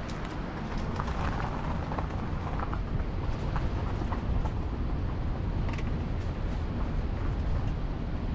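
Wind buffeting the microphone of a vehicle-mounted action camera over steady road noise from a car driving along, with scattered light ticks and crackles.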